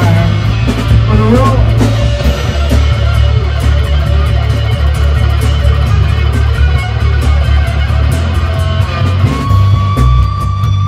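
Live boogie-rock band: a Stratocaster-style electric guitar plays a lead solo with bent notes over bass guitar and drums. Near the end the guitar holds one long sustained note.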